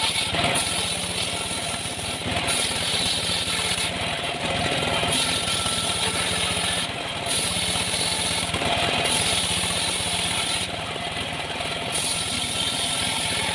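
Engine-driven saw running steadily while sawing sengon timber, with a high hiss that comes and goes every second or two.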